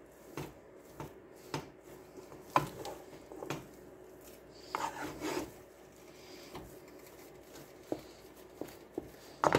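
Wooden spoon stirring and scraping a thick, stiff flour, butter and broth dough around a pot, with irregular scrapes and knocks of the spoon against the pot's side. This is the cooked paste for the puffs, before the eggs go in.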